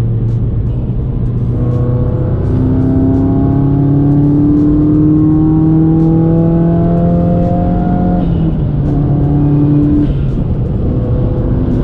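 Turbocharged flat-four engine of a modified Subaru WRX accelerating under load, its pitch rising steadily for about six seconds, then dropping sharply about eight seconds in and running steadily after.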